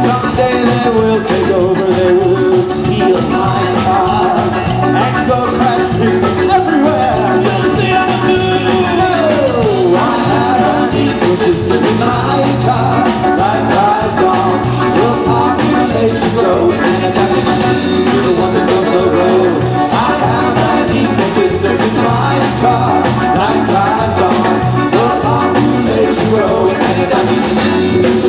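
A live band plays a song on drum kit, electric bass and electric guitar, with some singing. About ten seconds in, one line slides down in pitch.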